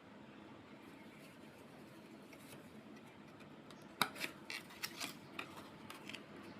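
Handling noise: a faint steady hum, then a sharp click about four seconds in followed by a quick run of lighter clicks and rustles, as an object or its packaging is handled.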